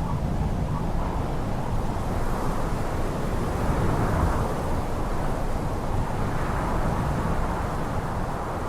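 Wind blowing steadily, a low rushing noise with no distinct tones, swelling slightly about four seconds in.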